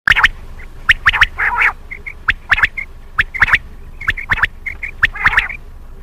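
Common quail calling repeatedly: loud, sharp notes in quick groups of two or three, about once a second, with soft short paired notes between the groups.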